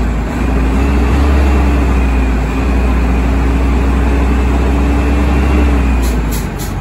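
Diesel transit bus engine running steadily with a strong low drone and a faint high whine, dropping off just before the end.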